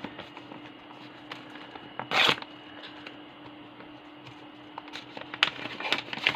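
Trading cards and their plastic packaging being handled: one short, loud tearing rustle about two seconds in, then scattered clicks and rustles near the end.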